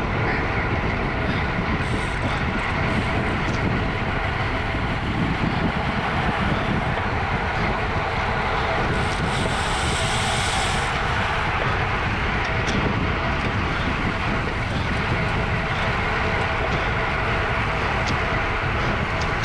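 Wind rushing over a camera microphone carried on a racing bicycle at speed, a loud, steady rush with road noise beneath it. A brief higher hiss comes about halfway through.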